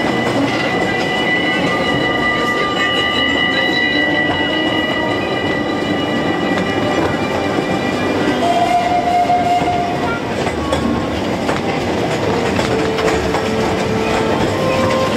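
Ride aboard a park steam train: the carriages rattle and clatter steadily along the track, with thin high squealing tones from the wheels in the first half.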